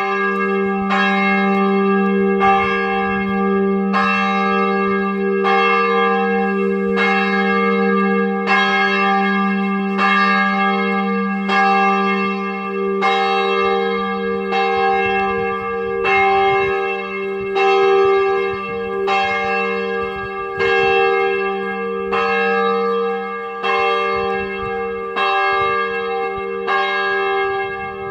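Church tower bells ringing, with a new stroke about once a second over a steady low hum and overlapping ringing tones.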